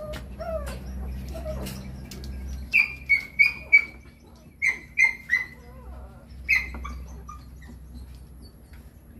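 A bird chirping in quick series of short, sharp, falling notes: four in a row, then three, then a single one.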